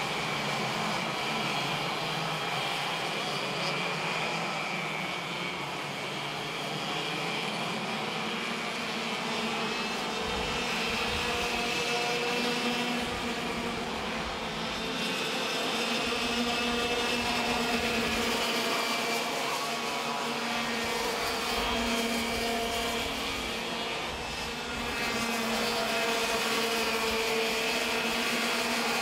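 Racing go-kart engines running at high revs, their pitch rising and falling as the karts accelerate and brake through corners.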